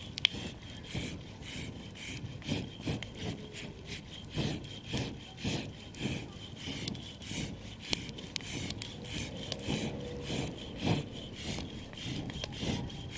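Steady back-and-forth scraping strokes, about three a second, with a sharp click near the start.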